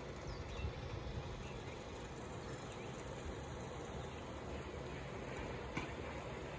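Steady outdoor background noise with a fluctuating low rumble, and one sharp click a little before the end.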